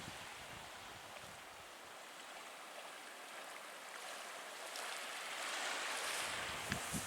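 Surf washing on a beach: a steady hiss of breaking waves that swells over the last couple of seconds.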